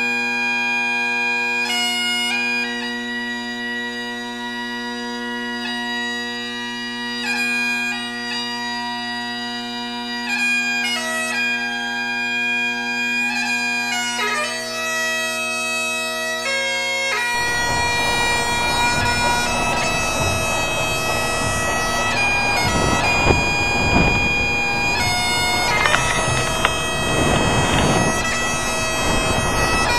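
Bagpipes playing a slow tune over steady drones. About two-thirds of the way through, a rough noisy rumble comes in under the pipes, as from an outdoor recording.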